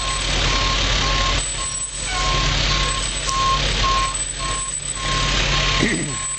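Fire truck's backup alarm beeping in a steady, even rhythm as the truck reverses, over the low rumble of its engine.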